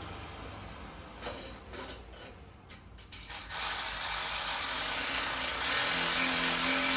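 Ratchet wrench tightening the nut of an exhaust V-band clamp: a couple of light clicks, then from about three seconds in a loud, steady run of rapid ratcheting.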